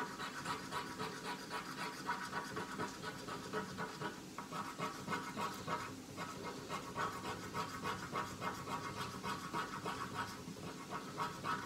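Scratch-off lottery ticket being scraped with a small metal tool, a quick steady run of short back-and-forth scratching strokes.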